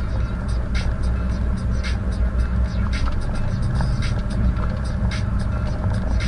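Car cabin road noise at a steady cruise: a continuous low rumble of tyres and engine, with frequent short, irregular ticks and rattles.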